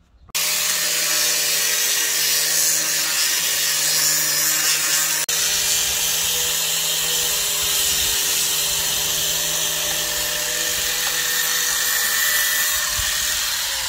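Angle grinder switching on about half a second in and running steadily at full speed, its disc grinding down the end of a drain pipe to shape it so a fitting slides on more easily. A momentary drop in the sound about five seconds in.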